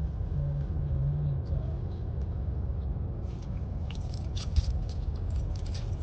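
Road traffic: a steady low rumble of passing vehicles, with scattered light clicks in the second half.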